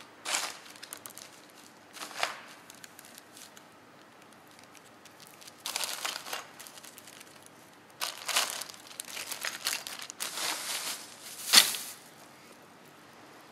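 Plastic bags crinkling as they are handled: a zip-lock bag and a bag of ice. It comes in several separate bursts, the loudest near the end.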